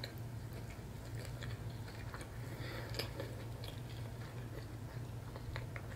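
A person chewing a mouthful of catfish sandwich on soft cauliflower flatbread, with faint, scattered wet mouth clicks over a steady low hum.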